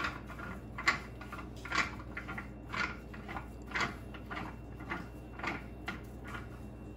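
Wrench working the stern drive's mounting nuts: a run of short metallic clicks, roughly two a second, over a low steady hum.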